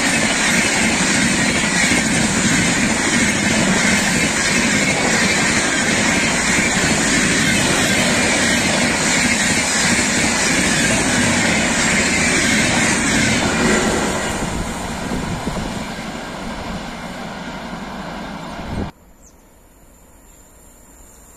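Indian Railways express train of red LHB coaches passing close by at speed, with a loud, steady rush and clatter of wheels on the rails. The noise fades over the last few seconds as the train goes by, then drops abruptly to a much quieter background near the end.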